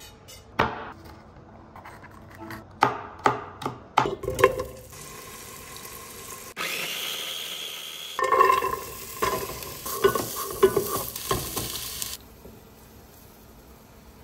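Home-cooking sounds: a series of sharp knocks and clatters of utensils against pans and pots, with sizzling from food frying. About halfway through comes a steady run of noise lasting a second and a half, followed by more clatter.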